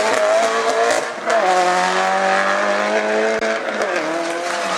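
Race car engine at high revs on a hillclimb. It dips briefly about a second in, as at a gear change, then holds steady high revs and falls away near the end as the driver lifts off.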